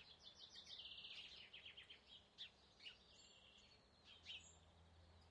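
Faint wild birdsong: a rapid trill of high repeated notes over the first two seconds, then a few scattered short chirps.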